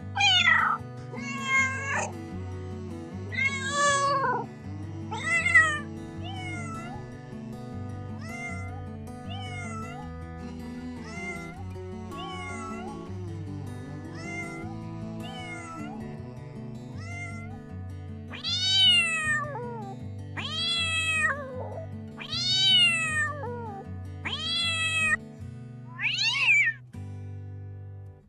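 A cat meowing over and over, each meow rising then falling in pitch. The calls are loud at first, fainter for several seconds in the middle, then come as a string of loud meows about two seconds apart near the end, all over background music with a steady bass line.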